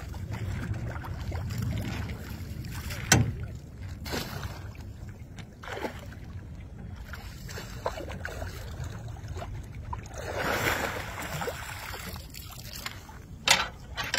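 Water splashing and sloshing as catfish thrash in a net at the water's edge, with wind rumbling on the microphone and a few sharp knocks from handling the net. The loudest knock comes about three seconds in.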